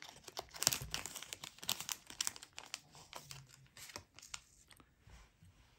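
Crinkling, tearing crackles as a pinch of SLF Prism Hare's Ear synthetic dubbing is pulled out and handled by fingers. The crackles are dense at first, thin out and stop about five seconds in.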